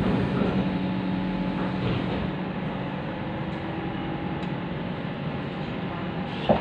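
Siemens C651 metro train heard from inside the carriage while moving: steady running noise with a constant low hum, and a single short knock shortly before the end.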